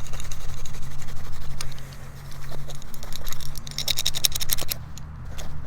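Steel wool scrubbing a brass-plated belt buckle in rapid back-and-forth strokes to polish off tarnish, pausing briefly about two seconds in, then picking up again.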